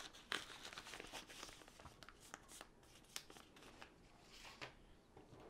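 Faint, scattered crinkling and rustling of a plastic tool kit bag and small plastic tools being handled, with many small ticks and crackles.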